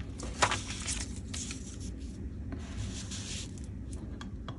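Magazine paper cutouts rustling and rubbing as they are handled, with scattered sharp clicks, the loudest about half a second in.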